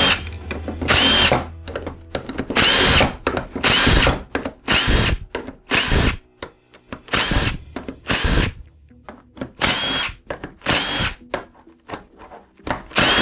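Cordless power driver run in a dozen or so short bursts about a second apart, each spinning up with a brief rising whine. It is backing out the Torx 30 screws that hold a Toyota U241E transmission oil pump together.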